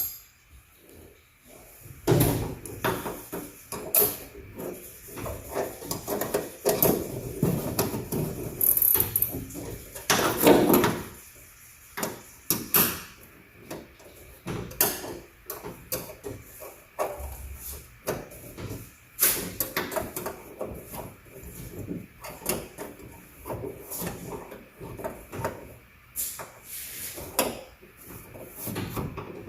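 Irregular clicks, clunks and scrapes of metal parts being handled and fitted inside a 1971 Chevy truck door while the door handle and latch mechanism are worked on.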